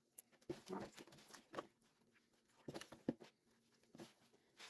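Faint, scattered squishing and patting of bare hands mixing oiled, sliced vegetables in a baking tray.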